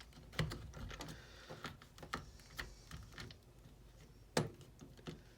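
Irregular light clicks and knocks of plastic drill parts being handled and fitted together, with two sharper knocks about half a second and about four seconds in; no motor is running.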